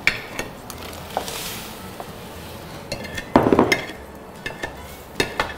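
Batter poured into a hot wok and stirred with a wooden spatula: knocks and scraping of the spatula against the wok, with a soft hiss as the batter goes in and the loudest scrape about three and a half seconds in.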